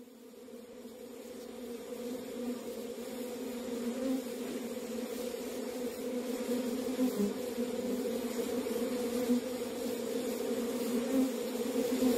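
Steady buzzing drone fading in from silence and slowly growing louder: the build-up at the start of a music track.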